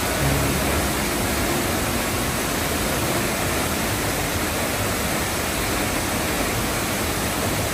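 Steady roar of the 43-metre Pulhapanzak waterfall: an even, unbroken rush of falling water.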